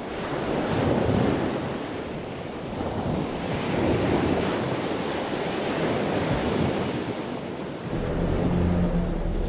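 Ocean waves and wind, a surf sound that fades in and swells and eases every few seconds. About eight seconds in, a low steady hum joins it.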